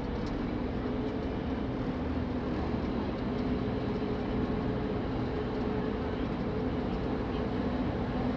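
A ferry's engines running with a steady drone: two low, even tones over a wash of noise, heard aboard the boat.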